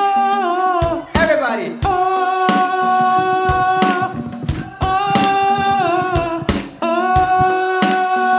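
Live music: a voice singing a melody in long held notes, over keyboard accompaniment and regular percussive hits.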